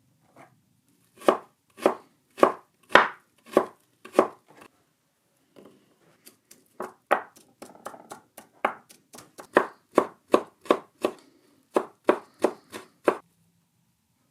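Knife chopping on a cutting board: six slower cuts about half a second apart, then after a short pause a quicker run of cuts, about three a second, that stops just before the end.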